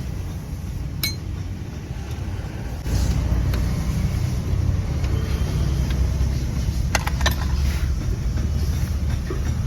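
A few sharp metallic clinks, one about a second in and two close together near the seventh second, typical of tools and parts handled during rear brake pad work, over a steady low rumble that gets louder about three seconds in.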